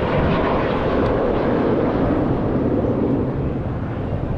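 Engine noise of an airplane flying past overhead: a steady, loud rushing sound whose pitch sinks slightly as it goes by.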